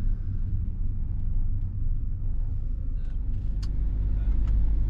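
Steady low rumble, with a few faint ticks about three and a half and four and a half seconds in.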